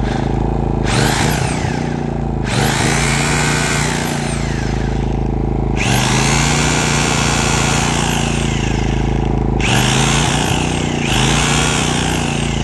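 Corded Milwaukee heavy-duty hammer drill run in five bursts, each spinning up with a rising whine and winding down. It is powered by a Maxpeedingrods MXR 3500 inverter generator, whose engine runs steadily underneath with very little rev fluctuation under the roughly 1 kW load.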